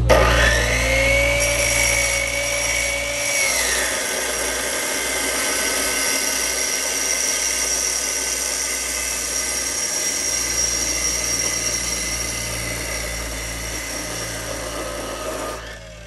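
Abrasive chop saw cutting steel pipe: the motor starts with a rising whine that levels off, then the spinning cut-off wheel grinds through the pipe in a long, steady grinding noise, which drops away sharply near the end.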